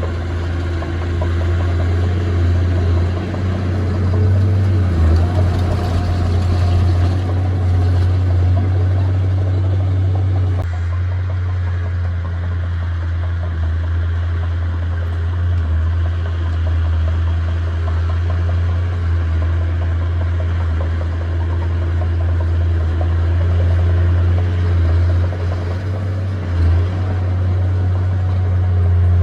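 Diesel engine of a heavy earthmoving machine running steadily with a deep, even hum. About ten seconds in the higher rattle drops away abruptly and the engine carries on.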